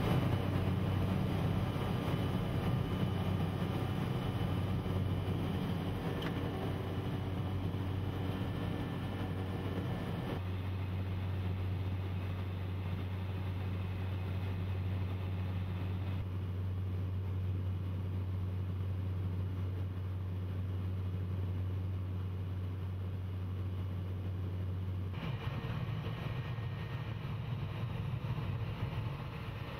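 Single-engine light aircraft's piston engine and propeller droning steadily, heard from inside the cockpit. The tone changes abruptly three times, about a third of the way in, a little past halfway and near the end, as separate recordings are spliced together.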